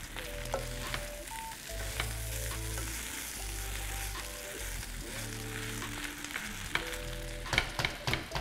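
Fried rice sizzling in a non-stick wok as it is stirred and turned with a spatula. Near the end comes a quick run of sharper scrapes and taps of the spatula against the pan. Background music with held low notes plays underneath.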